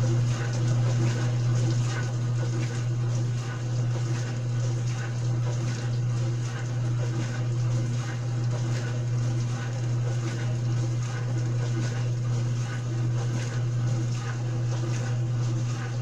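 Dishwasher running its wash cycle: water spraying and splashing inside the tub over a steady low motor hum.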